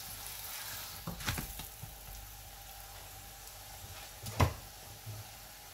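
Oil sizzling under a paratha frying on a flat iron tawa. A few clicks of a metal spatula against the pan come about a second in, and a single sharp knock, the loudest sound, comes about four and a half seconds in.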